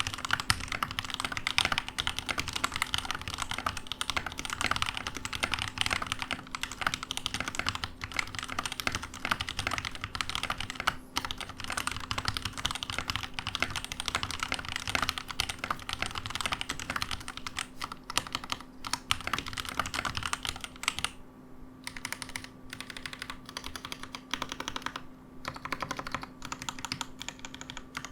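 Keydous NJ80 mechanical keyboard with Gateron Pro Yellow linear switches on a steel plate, typed on in a fast, continuous stream of keystrokes. The typing thins out to sparser, separate strokes about 21 seconds in.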